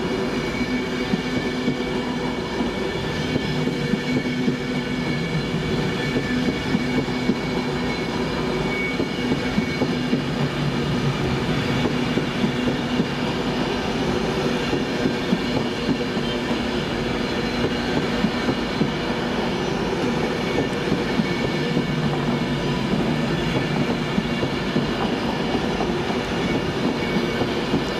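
A train running steadily on the rails, its wheels clicking rapidly over rail joints, with a steady hum of several tones from its traction.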